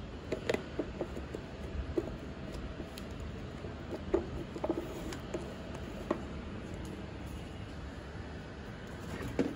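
Plastic food containers being handled and set down on a kitchen counter: scattered light clicks and taps over a steady low hum, with a louder knock near the end.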